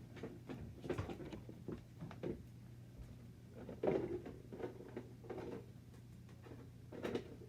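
Irregular light knocks, taps and rustling of small items being handled, the loudest knock a little before four seconds in, over a faint steady low hum.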